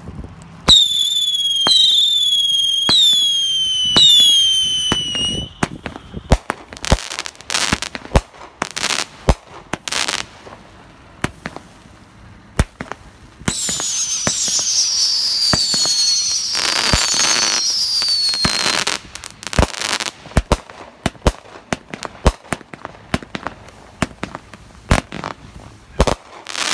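Fireworks going off. A run of four whistles, each falling in pitch, comes about once a second. Then a string of sharp pops and bangs, a second run of higher falling whistles just past the middle, and more scattered bangs.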